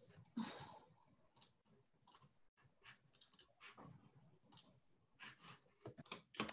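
Near silence with faint, scattered clicks at a computer, one a little louder about half a second in and several close together near the end.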